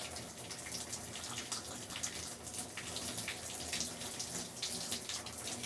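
Shower running steadily, its spray spattering with many small splashes of drops.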